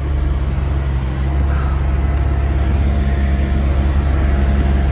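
Car driving slowly through deep snow without chains, heard from inside the cabin as a steady low rumble of engine and tyres.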